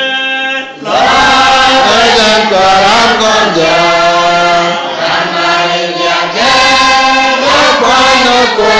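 Voices chanting in a sung cadence with long held notes. The sound dips briefly about half a second in, then carries on loud without a break.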